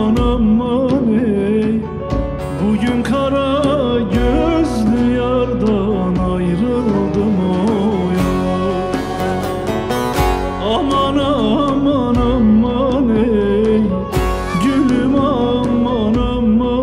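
Live Turkish folk music (türkü): a bağlama (saz) picked and strummed, with a small ensemble of violin, keyboard and hand drums keeping a regular beat.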